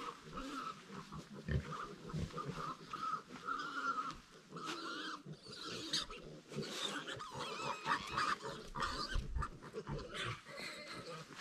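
An animal making a string of short, irregular sounds.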